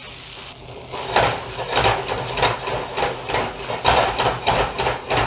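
Spatula scraping and knocking against the pan while vegetable fried rice is stir-fried and mixed, in quick strokes about three a second, starting about a second in.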